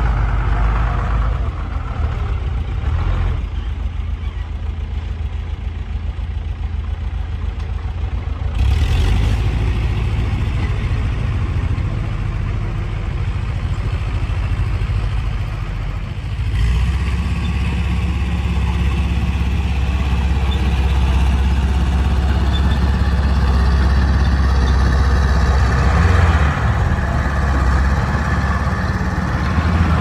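Diesel engine of earthmoving machinery running with a steady low drone. It changes pitch and load a few times and grows louder and steadier a little past halfway.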